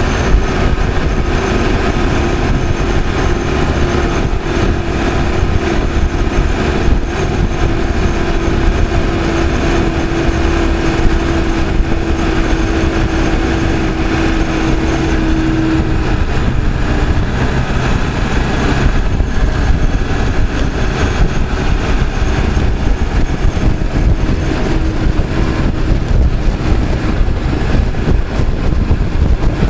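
Caterpillar 416C backhoe's four-cylinder diesel engine running steadily under way, with a whine that fades out a little past halfway through.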